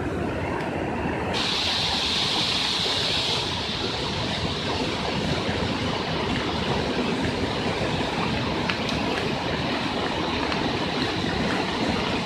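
Floodwater rushing down a street in a steady, dense wash of noise. It turns brighter and hissier about a second and a half in.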